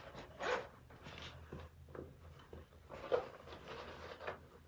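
Quiet rummaging through a drumstick bag: soft rustling with a few light knocks of sticks and gear, about half a second in, around three seconds and near the end.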